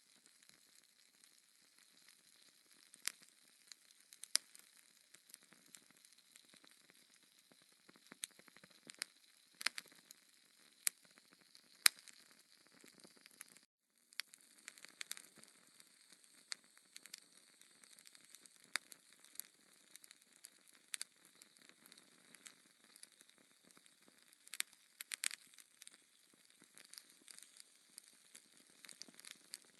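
Logs burning in a fireplace: a soft steady hiss with sharp crackles and pops at irregular intervals, a few of them louder snaps. The sound drops out completely for a moment a little before the middle.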